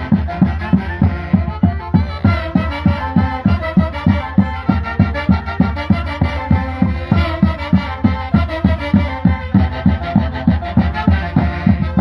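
Saxophone band playing a lively Santiago dance tune, the saxophones carrying the melody over a steady, even drum beat.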